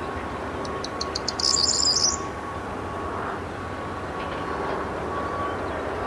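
Corn bunting singing one song about half a second in: a few spaced high ticks that quicken into a dense, jangling trill about a second and a half long. The song is heard over a steady background rumble with a faint hum.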